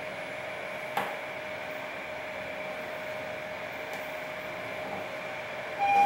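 Mitsubishi elevator car travelling: a steady hum with a faint whine, and one click about a second in. Just before the end a louder tone starts.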